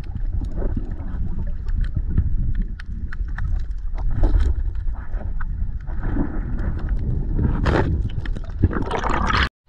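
Underwater sound during a freedive for crayfish: a continuous low rumble of water moving past the camera, dotted with many sharp clicks and crackles, and two louder rushing bursts near the end.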